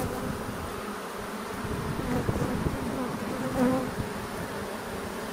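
Honeybees buzzing steadily around an open nuc box crowded with bees, with a brief louder buzz about three and a half seconds in.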